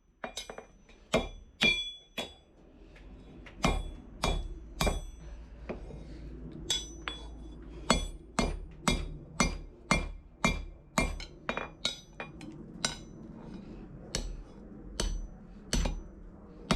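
Hammer blows on a bar being bent around the horn of a VEVOR 66 lb London pattern anvil, about two a second with a few short pauses. Each strike leaves a bright metallic ring.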